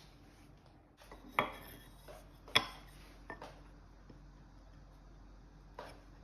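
Sharp knocks and taps of woodworking: two louder knocks about a second apart, then a few fainter taps.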